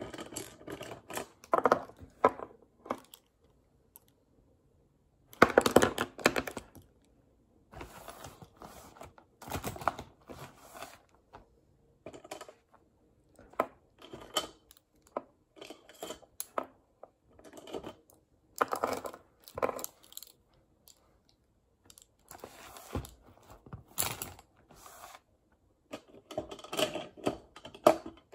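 Plastic pens and pencils being handled close up: irregular clicks and clacks as they knock together and against the table, along with rustling of the cloth pencil case. The sounds come in bursts with short silent gaps between.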